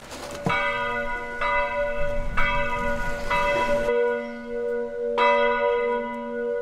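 Church bell tolling. It is struck about once a second, each stroke ringing on into the next, and the strokes come further apart in the second half.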